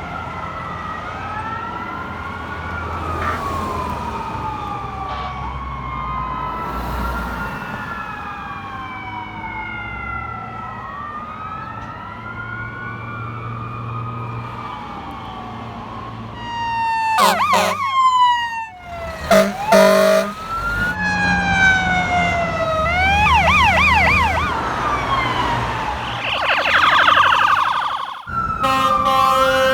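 Sirens of a fire engine and a ladder truck wailing together in overlapping slow rises and falls. About halfway in they get louder and switch to fast yelps, with short loud air horn blasts.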